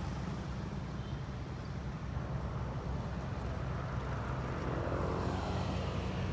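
Heavy machine's diesel engine running steadily at a low drone, swelling a little with a higher whine about four to six seconds in.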